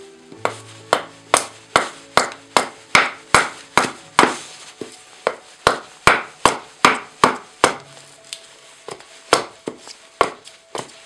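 A hatchet chopping rapidly into a piece of ash wood stood on end on a chopping block, about two to three sharp strikes a second, with a brief lull near eight seconds. Background music plays underneath.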